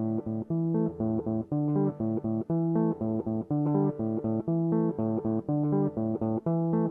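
Music: a plucked guitar playing a riff of short notes that repeat over and over, with no drums.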